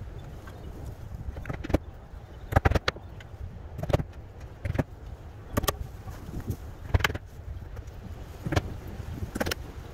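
Sharp strikes at irregular intervals, about one a second with a quick cluster of three near the start, as tar paper is fastened down onto a wooden roof deck, over a low steady rumble of wind on the microphone.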